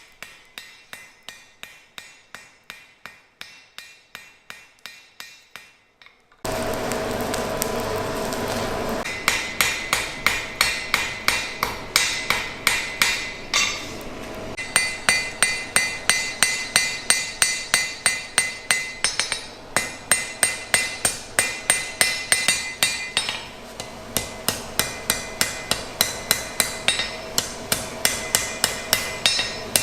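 Blacksmith's hammer striking hot iron on an anvil while forging an arrowhead: steady runs of strikes about three a second, each with a bright ring, broken by short pauses. The strikes are quieter for the first few seconds, then a steady rushing noise runs for a couple of seconds before louder hammering.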